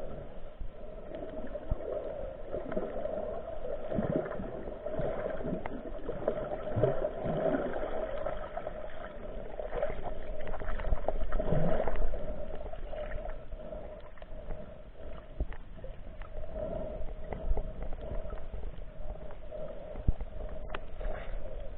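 Muffled underwater sound: irregular gurgling and water movement over a steady hum.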